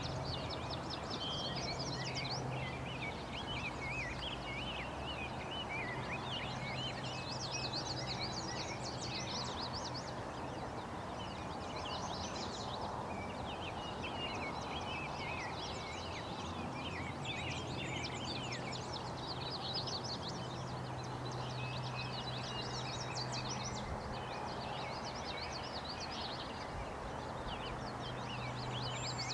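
Songbirds chirping and trilling almost continuously, several overlapping, over a steady outdoor background rush and a faint low hum.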